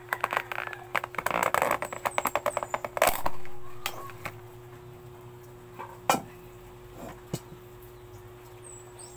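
Eating and food-handling sounds close to the microphone: a dense run of crackling clicks over the first three seconds, a sharp knock about three seconds in, then a few scattered clicks.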